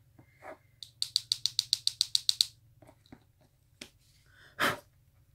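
Makeup brush and loose-powder jar being handled: a quick, even run of about a dozen light clicks, some nine a second, lasting about a second and a half. A single short puff of breath-like noise follows near the end.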